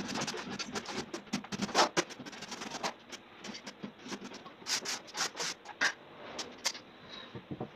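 Gypsum plaster blocks scraping and grating against each other as they are worked into place: a dense run of rough scrapes, then a second loud cluster about five seconds in.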